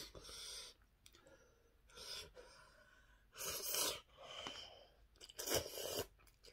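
A person slurping instant ramen noodles from chopsticks, about four noisy slurps a second or two apart, with quieter chewing between.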